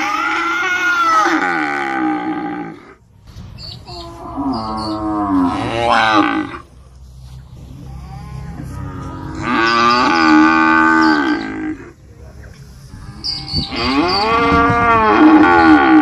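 A cow mooing: four long moos a few seconds apart, each rising and falling in pitch.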